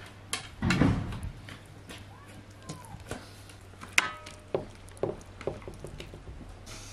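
Raw rabbit pieces being laid one by one into oil in a metal baking tray: soft wet slaps and small clicks, a louder thump about a second in, and a sharp knock about four seconds in followed by a brief ringing tone.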